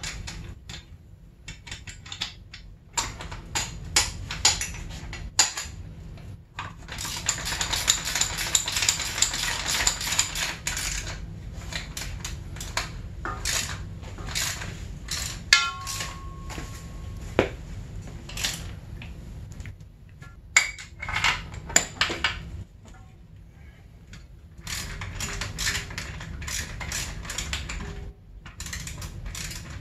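Metal hand tools clinking and a socket wrench ratcheting as bolts are run in on a motorcycle engine, with scattered sharp clicks and a longer run of fast ratchet clicking about a quarter of the way through.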